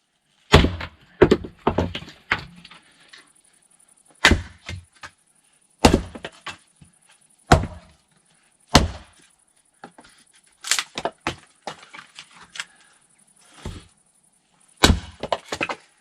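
Firewood being worked: a series of loud, sharp wooden knocks and clonks at uneven intervals, some coming in quick clusters of two or three.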